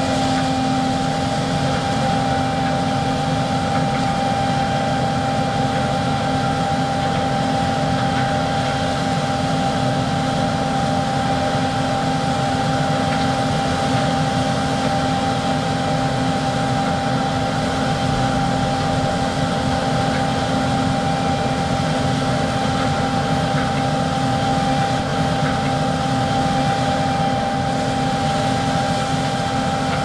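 John Deere T670i combine harvester running steadily while unloading grain through its auger: a constant machine drone with a steady high whine over it.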